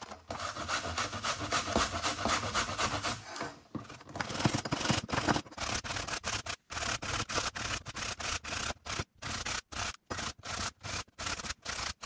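A raw vegetable rubbed on a hand grater in quick, even, repeated rasping strokes.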